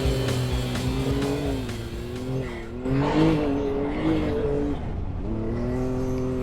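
Off-road vehicle engine pulling while rock crawling, its revs easing off and picking back up twice over rough terrain.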